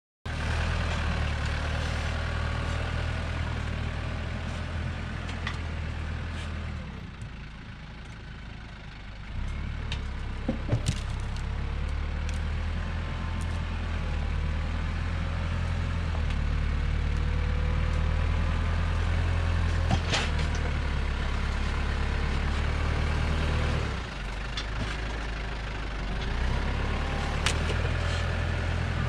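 Four-wheel-drive compact tractor engine running steadily as the tractor drives and pushes dirt to backfill a trench, its drone dropping in level twice. A few sharp knocks stand out over it.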